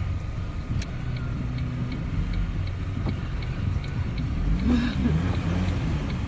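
Steady engine and road noise inside a moving car's cabin, with a regular ticking of about two to three clicks a second from the turn-signal indicator.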